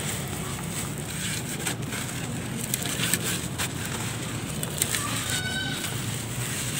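A dry, crumbly sand chunk being squeezed and broken apart by hand, giving scattered gritty crackles and falling grains, over a steady low background rumble.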